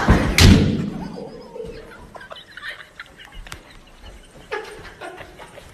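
A person crashing to the floor: a heavy thud about half a second in, then fainter scuffling and a few small knocks.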